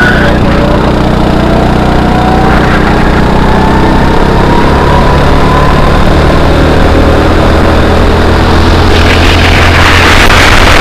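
Go-kart engine running continuously as the kart is driven, loud and close, with its pitch rising slowly over the first several seconds and then holding steady.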